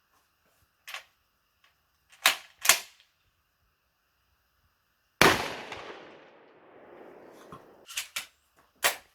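A 12-gauge pump-action shotgun fires one loud shot about five seconds in, the blast dying away over about two seconds; short mechanical clacks come before it, and a quick pair of clacks near the end as the pump is worked.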